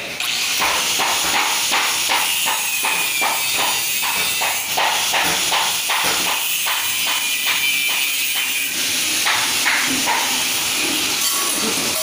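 Handheld angle grinder cutting a groove into a concrete floor: a loud, steady grinding hiss with a high whine, easing off about nine seconds in. Regular knocks, about three a second, run beneath it for most of that time.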